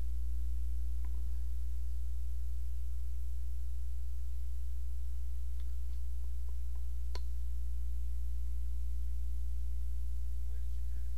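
Steady low electrical hum, with a few faint clicks over it; the sharpest click comes about seven seconds in.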